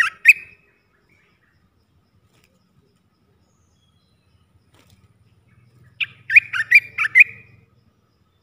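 Olive-winged bulbul singing: two short phrases of quick, liquid slurred notes. One phrase ends at the very start, and a second of about six notes comes about six seconds in.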